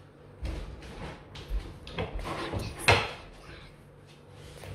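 Knife and spiky durian husk being handled on a ceramic plate: a string of knocks, clicks and scrapes as the husk is cut open, the loudest knock about three seconds in.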